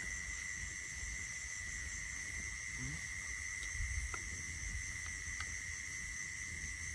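Night insects, crickets, trilling in a steady, unbroken high drone, with a couple of faint clicks about four and five seconds in.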